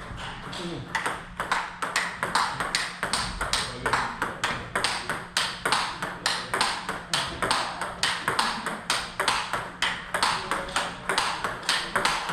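Table tennis rally: the celluloid-type ball clicking off rubber-faced rackets and bouncing on the table in a fast, even rhythm of about three to four hits a second, the new rubber under test giving a crisp, open sound.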